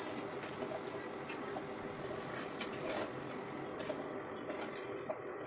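A steady hum from an induction cooktop's cooling fan, with a faint low tone in it, while a steel spoon stirs thick gravy in a nonstick pan, clinking and scraping against the pan a handful of times.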